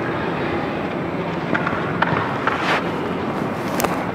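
Steady outdoor background noise with some wind on the microphone, broken by a few brief sharp sounds; the sharpest comes near the end.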